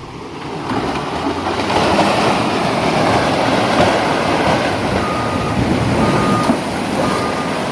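A loud, rough rumbling noise builds over the first two seconds and holds steady, with a vehicle's reversing alarm beeping about four times in the second half.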